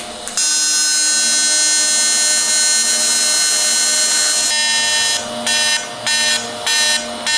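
TIG welding arc buzzing steadily while a seam is laid, then struck in short on-off bursts, five or six of them, near the end.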